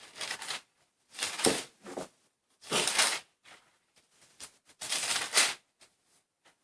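Paper pages of a Bible being turned and flipped, about four short rustles with brief pauses between them.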